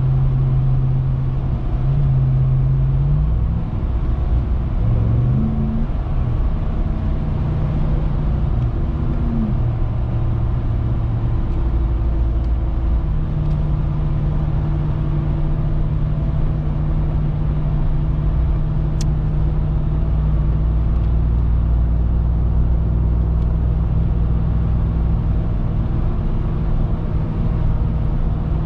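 Supercharged 6.2-litre Hemi V8 of a 2021 RAM 1500 TRX pickup, driving over a steady hiss. In the first ten seconds its note rises and steps as it accelerates through the gears, then it settles into a steady cruise.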